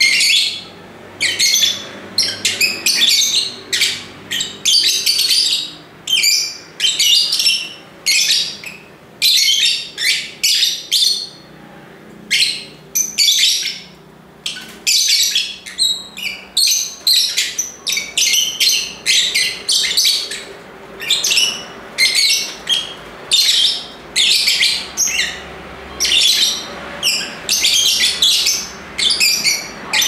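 Lovebirds chirping: a busy, unbroken run of short, shrill, high-pitched chattering calls, one or two bursts a second.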